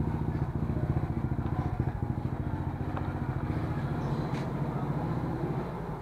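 Suzuki Smash's single-cylinder four-stroke engine idling steadily through an Exos R5i aftermarket exhaust, an even, fast putter with a quiet pipe note.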